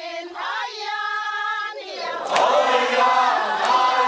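Voices singing: a single voice holds one long note, then from about two seconds in a choir of several voices joins.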